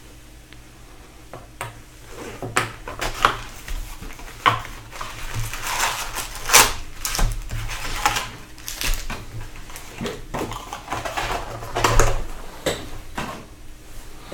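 Cardboard hobby box being opened and its wrapped trading-card packs pulled out and set down on a desk mat. Crinkling and rustling of the pack wrappers with cardboard flaps, taps and knocks starts about two seconds in.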